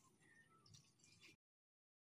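Near silence: faint ambience with a few short high chirps and light ticks, then the sound cuts out completely about a second and a half in.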